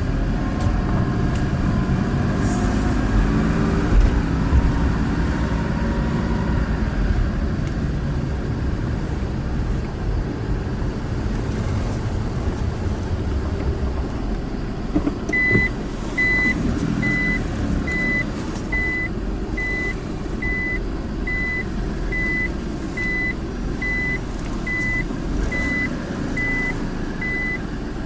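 A car drives slowly with engine and road noise. About halfway through, a reverse-gear warning beep starts, a single high tone repeating about twice a second, as the car backs into a parking space.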